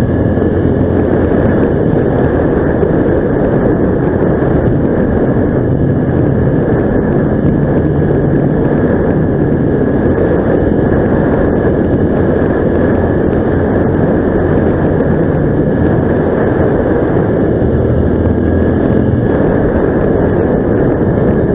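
A vehicle's engine running steadily while driving, a constant low drone under rough travel noise with a faint high whine held throughout.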